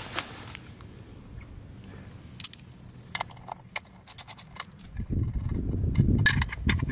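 Sharp metallic clicks and clinks of a ratchet and 14 mm socket undoing the oil filler bolt on a scooter's final-drive case, with a quick run of clicks about four seconds in. A louder low rumble follows in the last two seconds.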